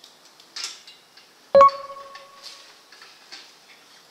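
Stainless steel muffler cutter and its bolts clinking against the tailpipe as it is fitted, with light scrapes and rattles and one sharp metallic clink about a second and a half in that rings briefly.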